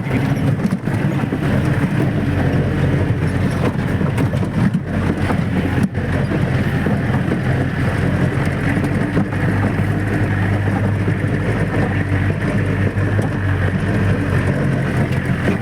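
Off-road jeep's engine running at a fairly steady pitch while driving, heard from on board over a rough, continuous road and wind noise.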